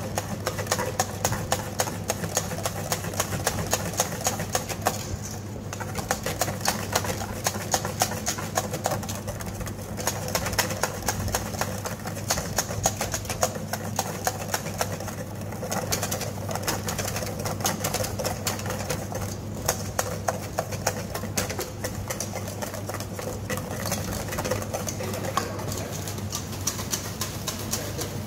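Wire balloon whisk beating egg-yolk sabayon in a stainless steel bowl: a fast, steady run of clicks and scrapes as the wires strike the metal, while the yolks are whisked over boiling water to thicken. A steady low hum runs underneath.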